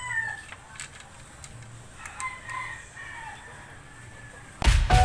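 A rooster crowing: one call tails off at the start and a second, fainter call comes about two seconds in, with a few light clicks between. Music starts abruptly near the end.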